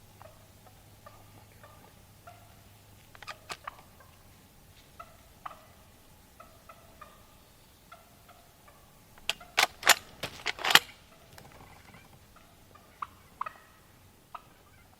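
Wild turkey gobbler gobbling: one loud rapid rattle of notes about nine to eleven seconds in, with short scattered calls before and after.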